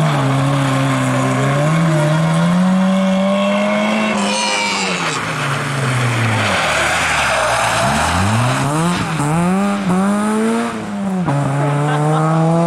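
Rally car engines at full throttle on a snowy stage. One engine holds high revs, then a Citroën Saxo's revs fall steeply as it brakes into the corner and climb again in several rising sweeps with gear changes as it accelerates away.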